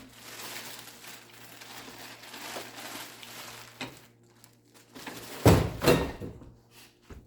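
Rustling and handling of a newly unboxed coffee grinder's parts and packaging, then a few loud knocks about five and a half seconds in as a loose piece falls and is caught, and a short click near the end.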